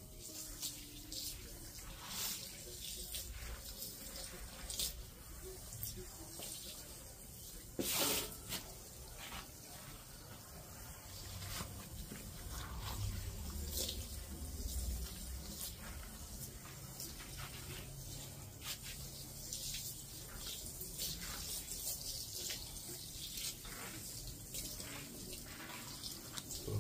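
Floor squeegee pushed in repeated strokes across a rug soaked with plain water, each stroke swishing and splashing water ahead of the blade.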